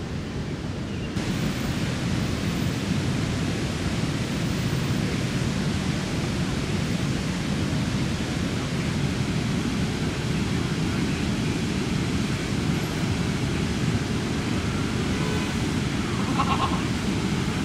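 Floodwater rushing steadily, a dense even roar heaviest in the low range that becomes fuller about a second in.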